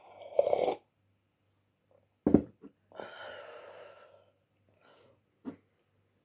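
A person with flu coughing a throaty cough, with a sharp cough about two seconds in and hoarse, breathy sounds around it, then a small click near the end.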